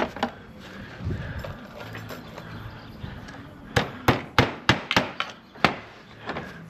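Sharp hammer strikes, six in a quick run of about three a second starting a little past halfway: a roofer nailing slates onto the roof.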